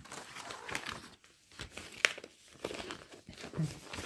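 Plastic packaging and a printed cross-stitch canvas being handled and folded, crinkling and rustling in irregular bursts, with one sharp crackle about two seconds in.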